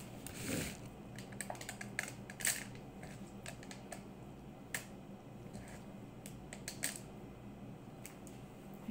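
Scattered light clicks and taps of hand work at a kitchen counter while stuffing vegetables with rice filling, with a brief scraping rustle about half a second in as the filling is scooped from a metal bowl. A low steady hum runs underneath.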